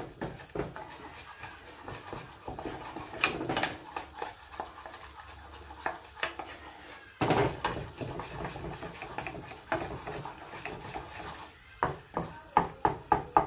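Wooden spatula stirring and scraping a bubbling butter-and-flour roux in a small non-stick saucepan, cooking it briefly as the base of a béchamel. Irregular scrapes and knocks against the pan, with a quick run of taps near the end.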